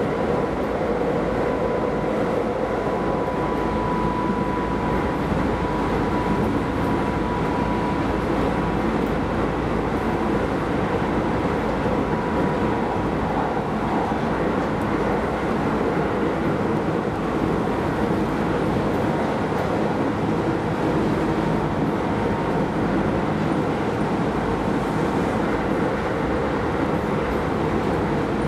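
Keisei Line rapid train running along the track, heard from on board: a steady rumble of wheels on rails, with a thin steady whine that fades out about two-thirds of the way through.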